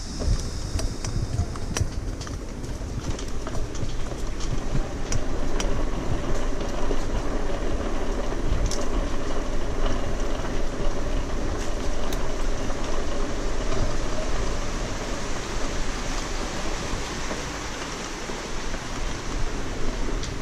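Bicycle rolling along a rough concrete path: a steady rumble of the tyres with the bike rattling and clicking over the bumps.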